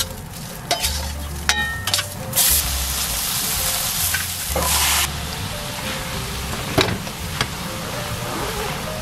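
Food sizzling and being stir-fried in a frying pan on a gas stove, the hiss swelling and easing as it is tossed, with a few sharp clicks of the utensil against the pan.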